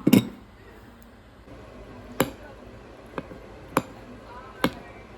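Kitchenware clinking and knocking: five sharp clinks, the loudest right at the start and the rest spread over the following few seconds.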